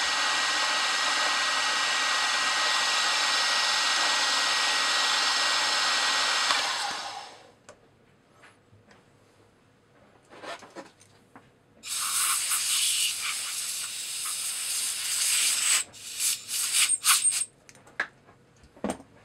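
Milling machine spindle running steadily with a small end mill cutting aluminum, then winding down and stopping about seven seconds in. Later comes a few seconds of high hissing noise, followed by several sharp clicks and clatters.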